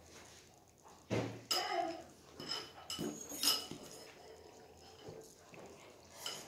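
Metal utensil scooping food from a ceramic bowl, clinking and scraping against it several times, each clink ringing briefly. A short voice sound comes a second or so in.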